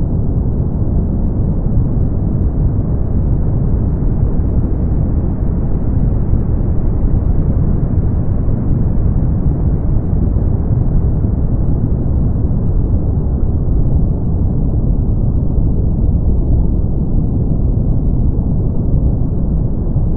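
Brown noise: a steady, even, deep rush with its weight in the bass and no high hiss.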